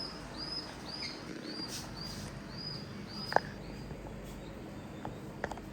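Ceiling fan running with a low steady hum. A faint high chirp repeats about twice a second through the first half, and a single sharp click comes a little past the middle.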